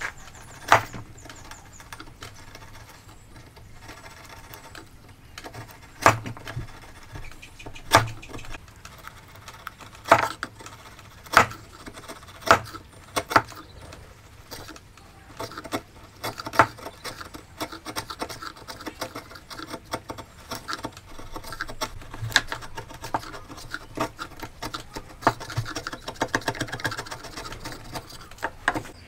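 Steel chisel paring and levering waste out of a mortise in a wooden beam: scraping and crunching of wood fibres, with sharp knocks every second or two.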